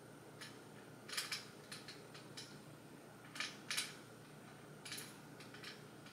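Faint scattered clicks and rustles, a dozen or so short ones, from hands handling padded crutches at the handgrips; the loudest come about a second in and between three and four seconds in.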